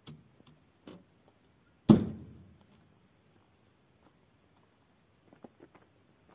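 A pickup truck's door slammed shut: one sharp bang about two seconds in that rings briefly, after a couple of lighter knocks. A few light steps on stony ground follow near the end.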